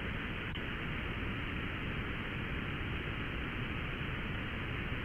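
Steady hiss of 80-meter band noise from an Elecraft K3S receiver in ESSB mode between transmissions, cut off sharply above about 4 kHz by the receiver's filter. A faint click about half a second in.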